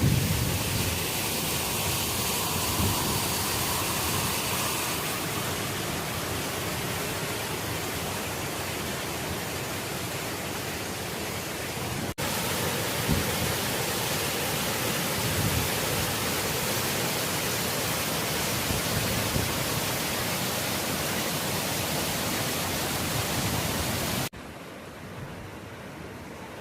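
Waterfall rushing, a steady loud wash of falling water. Near the end it cuts abruptly to a quieter, duller rush.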